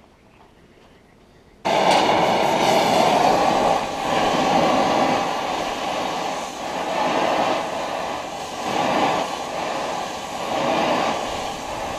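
Gas cutting torch flame burning with a steady, loud rush as it heats what is left of a failed bearing in a baler roller, to free it. It starts suddenly a couple of seconds in, after a quiet opening.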